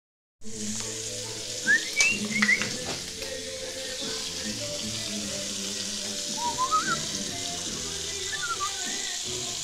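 Beef strips, jalapeños and vermicelli sizzling in a skillet with a steady hiss. A whistled tune comes in short phrases over it, near two seconds in and again later.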